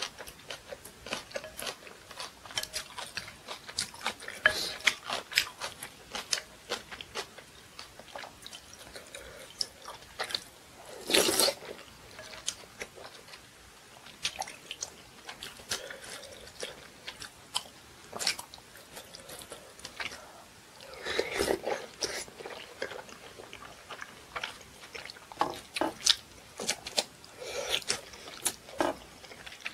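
Close-miked eating of rice cake dumpling soup: chewing with many small wet mouth clicks and smacks, and light clinks of a spoon on a glass bowl. Two louder, longer noisy bursts come about a third of the way in and again about two-thirds of the way in.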